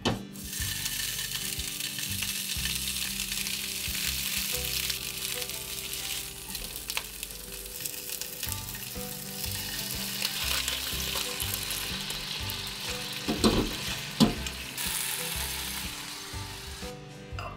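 Pieces of thick deep-fried tofu (atsuage) with shiso leaves sizzling as they fry in a nonstick frying pan. Two sharp knocks sound about three-quarters of the way through.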